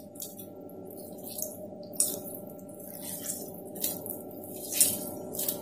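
Water splashing and squelching in a steel bowl as hands knead and dip a ball of mozzarella curd in cold water, in irregular bursts, the loudest about two seconds in and again near the end.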